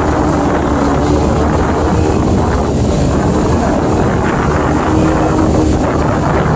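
Wind rushing over the microphone with the steady drone of a Toyota driving along, heard from on top of the moving vehicle.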